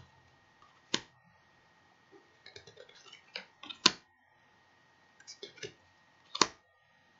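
Tarot cards handled one at a time in a flip-through: small clicks and rubbing as a card is slid off the deck, then a sharp card snap. This happens three times, about two and a half seconds apart.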